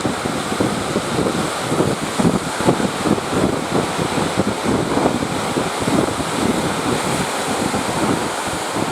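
Strong wind buffeting the microphone over the wash of surf, in uneven gusts.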